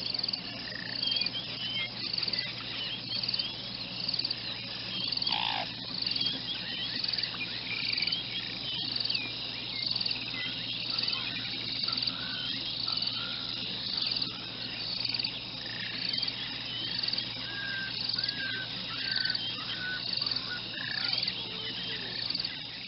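Night-time insect chorus, a steady high chirring that pulses about once a second, with scattered short chirping calls over it and one brief falling call about five seconds in.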